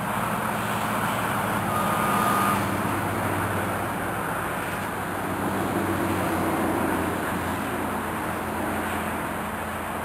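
Steady outdoor background noise, a rumble and hiss with a low hum underneath, and a brief thin high tone about two seconds in.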